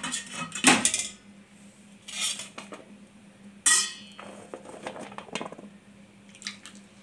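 Metal kitchen utensils clinking and knocking against cookware, a handful of separate strikes, the loudest a little before the middle with a brief metallic ring, over a faint steady hum.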